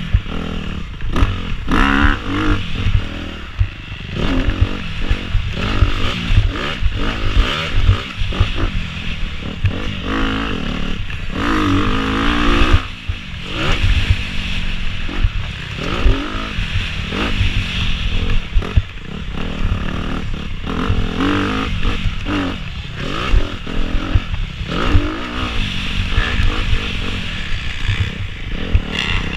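Motocross dirt bike engine ridden hard, heard from on the bike, its note rising and falling over and over as the rider revs out and backs off through the track's jumps and turns.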